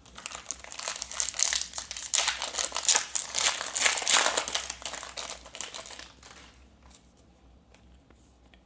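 Foil booster-pack wrapper crinkling as it is handled, a dense crackle for about six seconds that then dies down to a few faint ticks of card handling.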